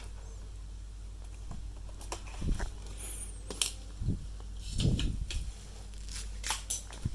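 Scattered light clicks and short knocks of small parts and tools being handled during a switch repair, over a steady low hum, with a brief high chirp about three seconds in.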